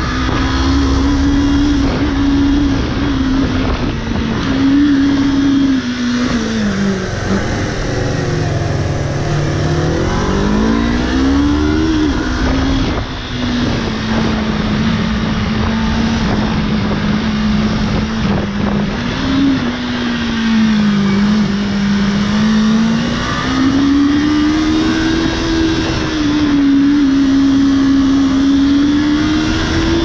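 Motorcycle engine heard from on board while riding, over wind and road noise. The engine note sags about seven seconds in, then climbs sharply as the bike accelerates around ten seconds in. It dips and rises again in the later part as the throttle opens and closes.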